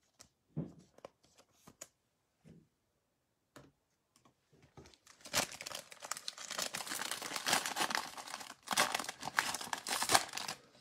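Foil wrapper of an Absolute Football trading-card value pack being torn open and crinkled in the hands, starting about halfway through with a brief pause, after a few faint taps of cards being handled.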